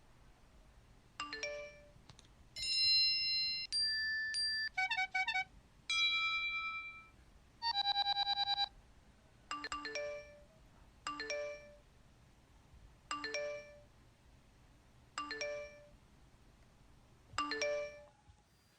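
Electronic ringtone and doorbell-style chimes: a few short beeping jingles, then a ding-dong chime repeating about every two seconds.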